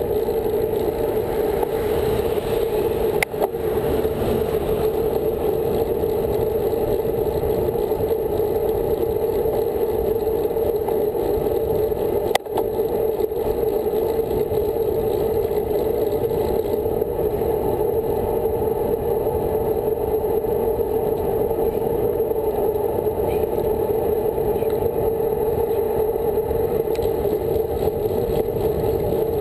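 Steady wind and tyre noise picked up by a handlebar-mounted camera on a road bike riding at speed, with a strong hum in the middle range. Two short sharp clicks stand out, about three seconds in and near the middle.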